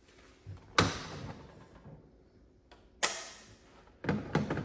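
Sharp clicks and knocks from handling a fire alarm horn-strobe while its strobe is switched to a different candela setting: one about a second in, another about three seconds in, and a quick run of several near the end.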